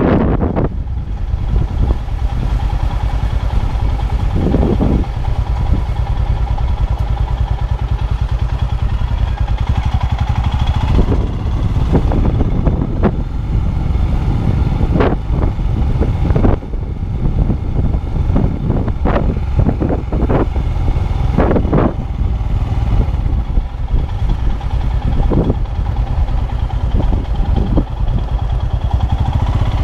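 Train running with a steady low rumble and a faint constant tone, with irregular clattering knocks throughout.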